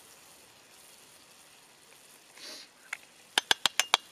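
Spices shaken from a glass jar into a cast iron pot of stew: a soft rustle, then a quick run of about six sharp taps as the jar is knocked to shake the spice out.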